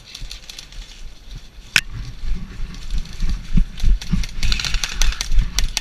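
Running footsteps and gear jostling on a body-worn camera: heavy thumps about three a second that start about two seconds in and grow louder, with a single sharp click just before they begin.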